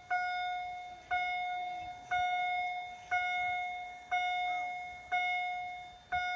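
Railway level-crossing warning bell striking about once a second, each ring sharp and then fading before the next, seven strikes in all: the crossing's warning cycle is active.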